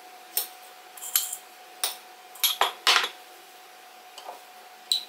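A spoon clinking and tapping against a glass jar, about seven separate irregular clinks, as granola is spooned into a layered chia pudding.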